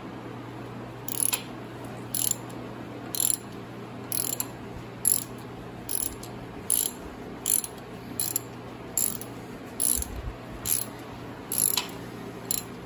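Hand ratchet wrench clicking as it backs out a screw on a Powerglide transmission, in repeated short bursts, one for each return stroke, a little more than once a second.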